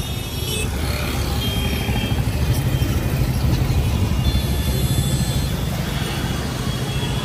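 Busy city road traffic on wet pavement: a steady low rumble of vehicle engines under an even hiss of passing cars and scooters.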